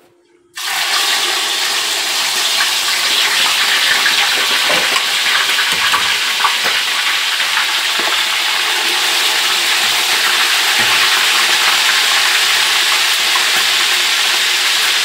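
Pieces of tambakol (tuna) fish frying in hot cooking oil. A loud, steady sizzle starts suddenly about half a second in as the fish goes into the pan, with occasional spattering pops.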